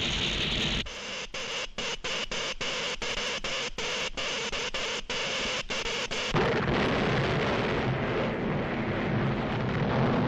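Cartoon sound effects: a hissing electric crackle that keeps cutting in and out several times a second, then, about six seconds in, a louder, deep rumble and crash of buildings breaking apart.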